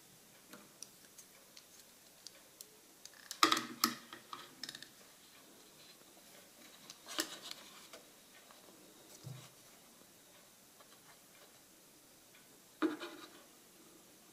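Plastic print tongs clacking against a plastic developing tray as a wet sheet of photographic paper is lifted out, with sharp clattery clicks a few seconds in, again around seven seconds and near the end, and faint light ticks between.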